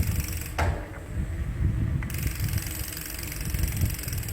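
Electric mountain bike being ridden, with an uneven low rumble, mechanical rattling and two sharp clicks, about half a second and two seconds in.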